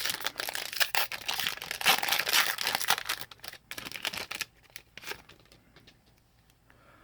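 Foil wrapper of a Magic: The Gathering booster pack crinkling as it is torn open, a dense crackle for about four seconds, then a few light clicks as the cards are handled.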